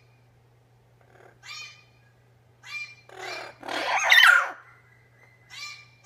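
Amazon parrot calls: a few short, squawky calls, then a louder, longer call about four seconds in, and another short call near the end, over a faint steady low hum.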